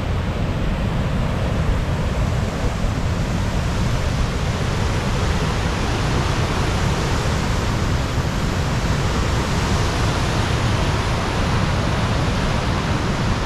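Steady, loud rushing of a mountain creek's cascading water, with a deep churning rumble underneath.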